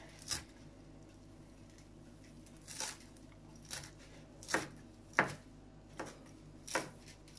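Kitchen knife finely chopping fresh parsley, mint and dill on a wooden cutting board: about seven separate, unevenly spaced strokes of the blade on the wood.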